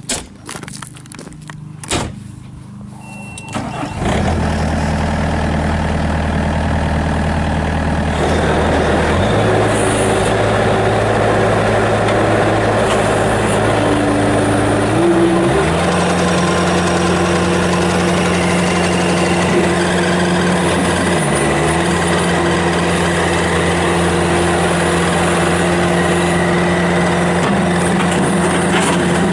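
A few clicks and a short beep, then the 2010 Bobcat S205 skid steer's Kubota diesel engine starts about four seconds in and idles. It is throttled up in two steps, at about nine and fifteen seconds, to a steady high-rpm run.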